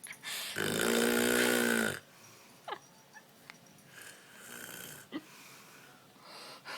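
A woman snoring in deep sleep: one loud, pitched snore about half a second in, lasting about a second and a half, then quieter breaths, with two brief squeaky sounds between them.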